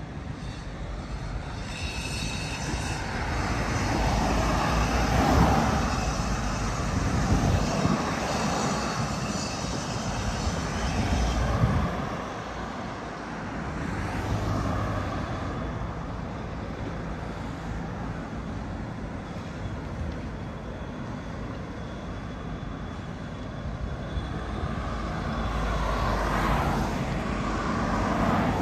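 Engine noise from something passing by, a rumbling wash that swells twice: loudest from about four to twelve seconds in, and again near the end.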